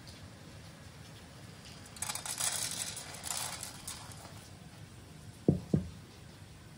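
Dried barberries poured from a bowl into a saucepan, pattering onto the pan for about two seconds. Near the end come two dull knocks a quarter second apart.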